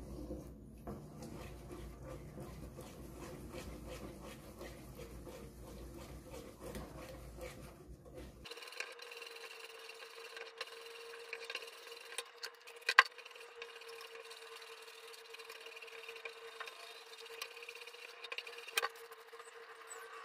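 Wooden spoon stirring thick flour paste in a pot, with repeated rubbing and scraping strokes. About eight seconds in the sound thins out to a faint steady tone, and a sharp knock about thirteen seconds in is the loudest moment.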